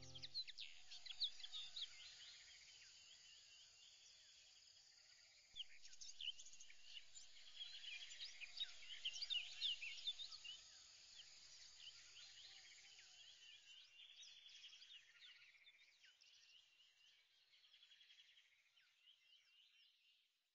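Faint chirping like small birds over a soft hiss: many short quick calls, busiest in the middle, fading away near the end.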